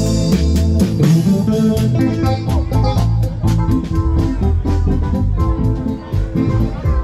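Music with plucked guitar and bass over a steady beat.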